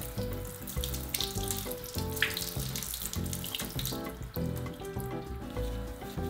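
Kitchen tap running over green leaves held under it as they are rinsed, the water splashing into a stainless steel sink. The water is loudest in the first half and fades toward the end.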